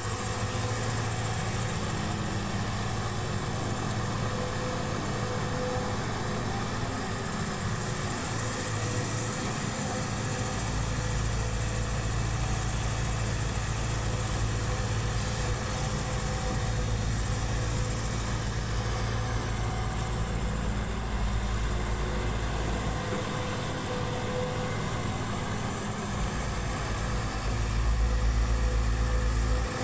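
Excavator's diesel engine running steadily, a continuous low drone. The deep low end grows heavier about a third of the way in, eases off, and comes back louder near the end.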